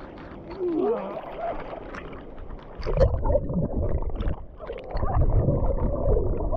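Swimming-pool water sloshing and splashing close to the microphone, becoming much louder and rumbling from about three seconds in. A few short sliding vocal sounds come before it.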